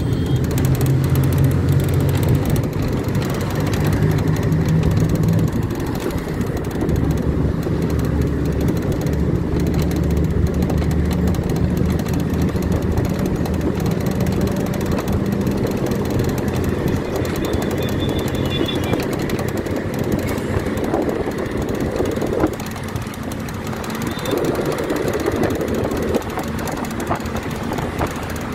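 Cabin noise of a moving bus at highway speed: a steady engine hum, strongest in the first few seconds, under a continuous rumble of tyres and road.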